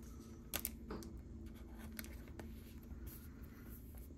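Faint scraping and a few light clicks of trading cards being slid and handled, over a low steady hum.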